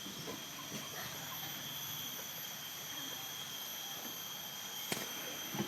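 Steady background hiss with a constant high-pitched whine, and two sharp clicks near the end.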